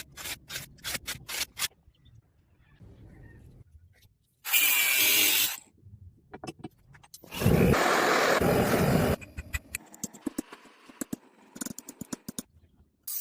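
Metalworking on a hand-made steel knife: a quick run of hammer blows, about four a second, then two loud bursts of rushing noise, one about a second long and one about two seconds long, then scattered light taps.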